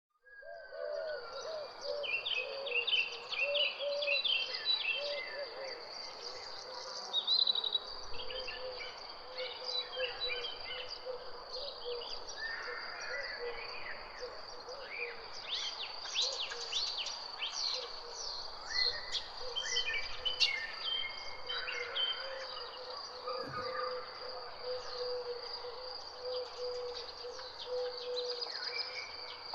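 Many birds chirping and singing over a steady, high, unbroken insect trill.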